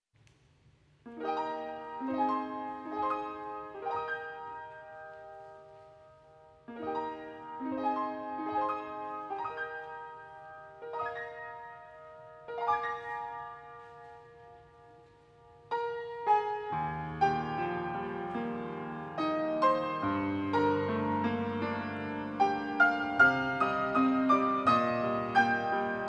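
Piano playing the introduction to a choir hymn: short phrases of struck chords that die away between them, then fuller playing with low bass notes from about sixteen seconds in.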